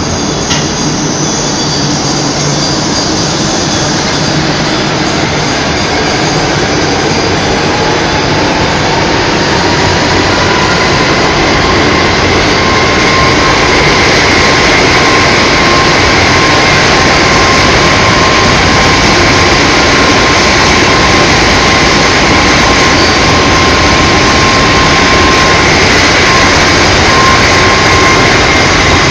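Aluminum rod breakdown (wire-drawing) machine running: a loud, steady mechanical noise with a high whine that rises in pitch over several seconds and then holds steady.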